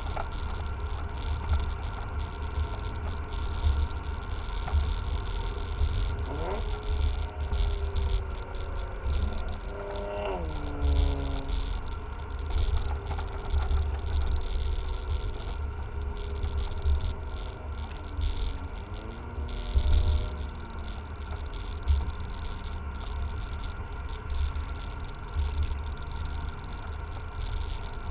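BMW sedan with a manual gearbox driving, heard from inside the cabin: a steady low road and wind rumble, with the engine note climbing about six seconds in, dropping sharply around ten seconds in, and falling again near twenty seconds as the revs come down.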